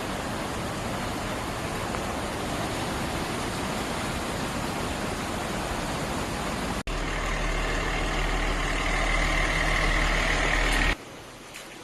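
Steady rushing noise of heavy rain and floodwater. It breaks off sharply about seven seconds in, then resumes with a steady low hum beneath it.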